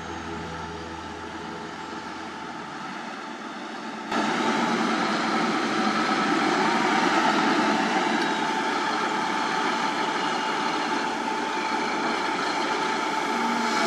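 Background music fades out over the first seconds. About four seconds in, the sound cuts abruptly to a Caterpillar 320 excavator working: its diesel engine runs steadily and loudly as it swings a loaded bucket of soil over a dump truck.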